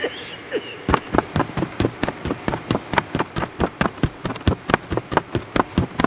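A fast run of sharp taps, about six a second, starting about a second in and keeping on steadily.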